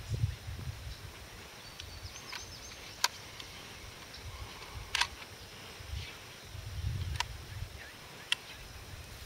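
A few short, sharp clicks a second or two apart over a low, uneven rumble.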